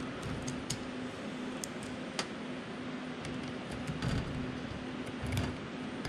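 A few light clicks and taps from a hand tool working at the end bearing of a copier drum unit, over a steady background hiss.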